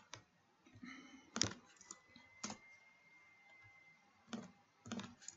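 Faint, scattered computer keyboard keystrokes and mouse clicks, single sharp clicks at irregular intervals with a few close together near the end, as code is pasted and the cursor is moved between lines.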